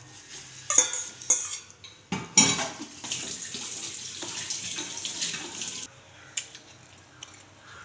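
Metal ladle clinking sharply against a metal cooking pot as boiled elephant-yam pieces go into the gravy, followed by a few seconds of wet stirring through the liquid. It quietens near the end, with a couple of light clinks.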